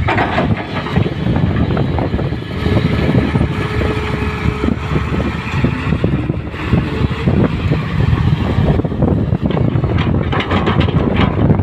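L&T Komatsu 200 excavator working: its diesel engine running steadily under load, with irregular clanks and knocks throughout.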